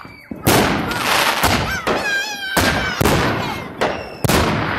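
Fireworks going off: a run of sharp bangs about a second apart, each with a rolling echo, and a wavering high whistle about two seconds in.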